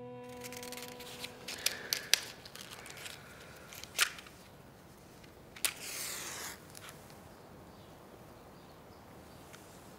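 A cigarette being lit by hand: a few small clicks and taps, then a sharp strike about six seconds in followed by about a second of hiss. Violin music fades out in the first two seconds.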